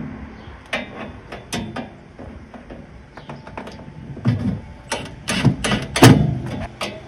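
Cordless impact driver run in short bursts to snug the attic rack's mounting screws, with clicks and knocks of the bit and rack in between; the loudest bursts come about five to six seconds in.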